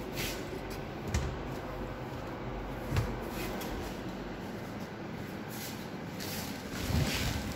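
Doors of a wooden vanity cabinet under a washbasin being closed, with light knocks about one and three seconds in, amid handling noise.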